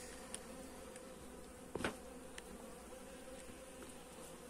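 Honeybees buzzing around their hives, a faint steady hum. A single faint click a little under two seconds in.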